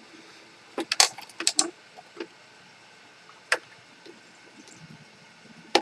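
Sharp clicks and knocks of hoverboard parts being handled and pried, as a glued-in component is worked loose: a quick run of clicks about a second in, then a few single clicks.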